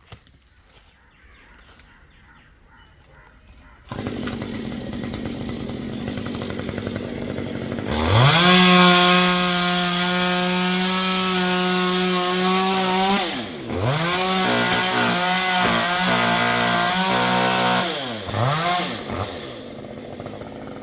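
Two-stroke chainsaw. It comes in suddenly about four seconds in at idle, then is revved to full throttle about eight seconds in and held there. Its pitch drops briefly, then it runs at high revs again, wavering and dipping as if under load in a cut, before a last quick blip and a return to idle near the end.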